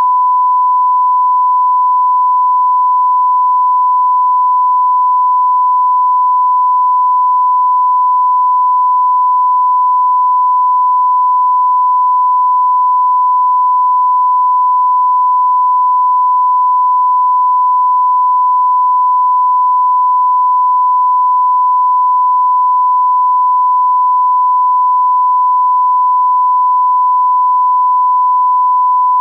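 Continuous sine-wave test tone: one pure, high, steady pitch held without a break or change in loudness, the tone that goes with a TV 'no signal' test screen.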